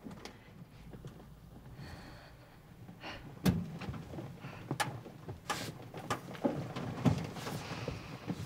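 A series of sharp knocks and thumps at irregular gaps over a faint low rumble. The loudest come about three and a half seconds in and again near seven seconds.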